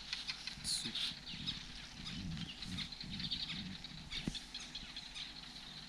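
Quiet evening bush ambience: many small birds chirping and twittering in quick short notes, over a steady background hiss, with a faint low sound coming and going partway through.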